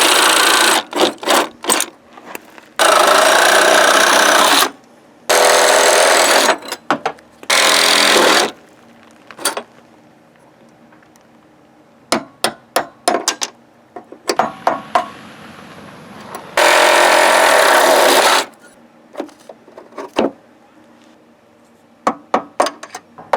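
Reciprocating saw (Sawzall) cutting through the steel of the old door hinge, run in several bursts of one to two seconds with short trigger blips in between.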